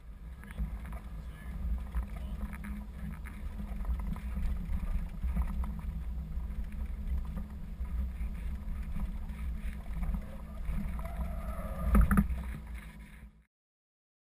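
Cab interior noise of an articulated truck braking hard on a wet track under conventional ABS: a steady low rumble with rattles, and a sharp knock about twelve seconds in. The sound then cuts off suddenly.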